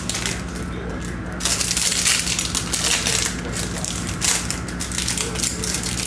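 Foil trading-card pack wrappers being torn open and crinkled by hand, in irregular runs of crinkling that are loudest from about a second and a half in, over a low steady hum.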